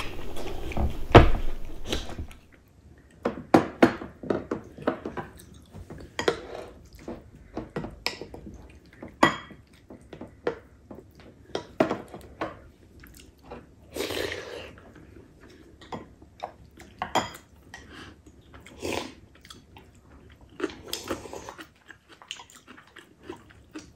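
Close-up sounds of two people eating: chewing and mouth noises, frequent short clicks of chopsticks and spoons against ceramic bowls, and a few longer slurps of seaweed soup.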